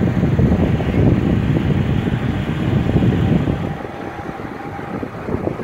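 Jet airliner's engines running loud as it slows on the runway after landing, mixed with wind buffeting the microphone. The engine noise eases a little after three and a half seconds.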